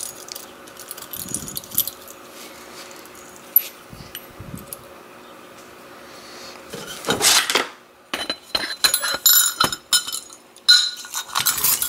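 Small metal clicks and clinks of a pin-tumbler lock core being taken apart with a pick. About seven seconds in comes a louder scraping rattle, then a quick run of sharp clinks as the small metal parts are tipped out.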